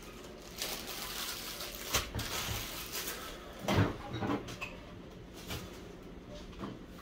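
Plastic food packaging being handled, crinkling for a few seconds with several light knocks, the loudest about halfway through. A couple of small clicks follow.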